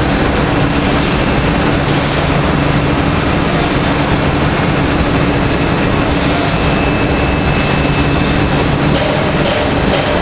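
Steady mechanical din of a biscuit production line: conveyor belts and a tunnel oven running, a dense clatter with a low hum under it.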